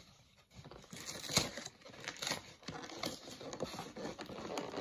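A cardboard card-collection box and its packaging being handled and pried open by hand: irregular clicks, taps and rustles.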